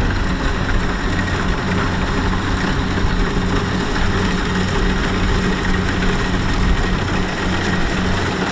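Kubota DC-70X rice combine harvester's diesel engine running steadily, with the machinery noise of the harvester at work.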